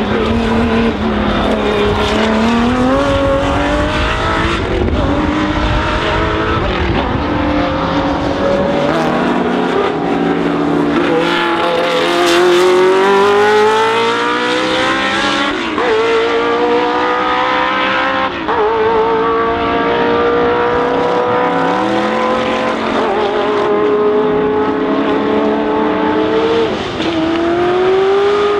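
Racing car engine at full throttle, its note climbing in pitch and dropping back several times as it shifts up through the gears.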